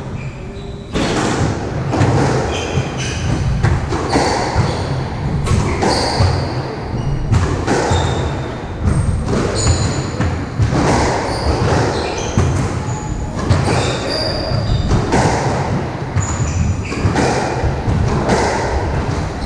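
Squash rally: the ball smacking off rackets and the walls every half second or so, with sharp short squeaks of court shoes on the wooden floor in between.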